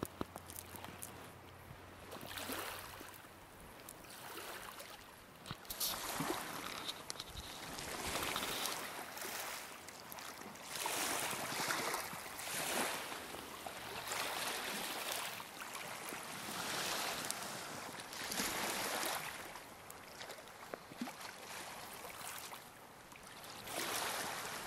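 Small waves washing in on a pebble shore, a swell of hiss rising and falling every couple of seconds, with a few faint clicks.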